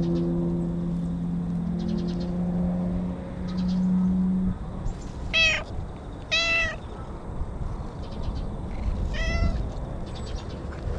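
An orange-and-white stray cat meows three times in the second half, each meow short and arching up and down in pitch. Before that a steady low hum fades out about four and a half seconds in.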